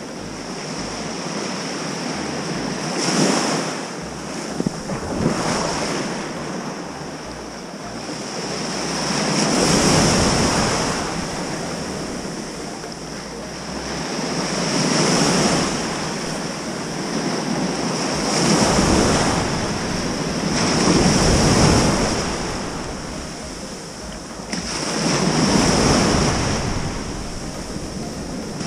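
Ocean surf breaking and washing up the beach, swelling and fading every few seconds. Wind rumbles on the microphone through roughly the first two-thirds.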